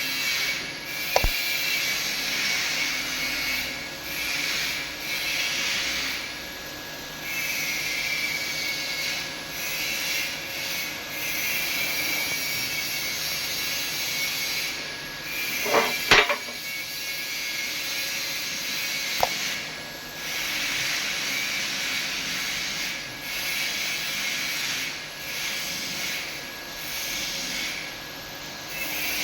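TIG welding arc hissing steadily, dipping every few seconds, with a faint steady whine and a few sharp clicks.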